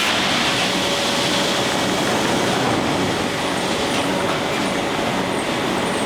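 Steam-powered sawmill machinery running: a steady, dense mechanical din with faint whining tones, dipping slightly about halfway through.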